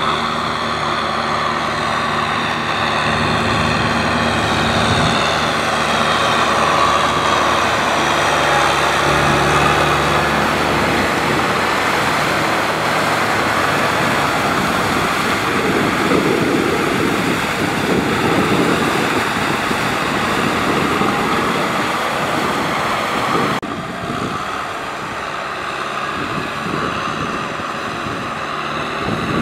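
Kubota M6040SU tractor's diesel engine running steadily under load while it drags a rotary tiller through a flooded paddy, with mud and water churning. About three-quarters of the way through, the sound shifts abruptly and drops a little in level.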